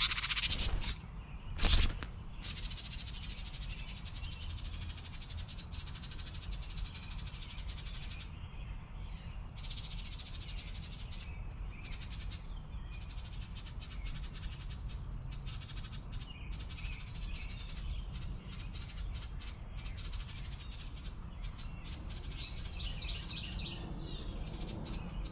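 Small songbird singing, most likely a house wren: rapid bubbling song phrases of a few seconds each with short pauses, over a low rumble. Two loud thumps in the first two seconds.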